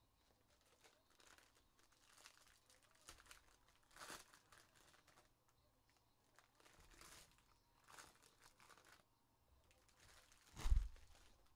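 Foil trading-card pack wrappers being torn open and crinkled, faint and in short scattered rustles, with a single louder thump about a second before the end.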